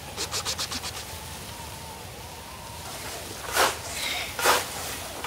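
Scythe swishing through tall grass: two long swings near the end, just under a second apart, after a quick run of short rustling strokes near the start.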